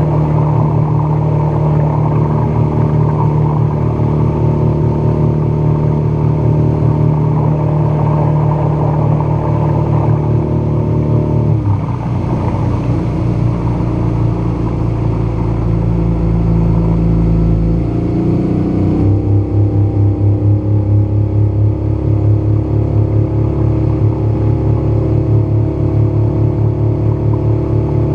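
Outboard motor running at planing speed, pushing a small fishing boat, with rushing water from the wake. The engine note shifts twice, about twelve seconds in and again about nineteen seconds in, then settles into a steady pulsing run.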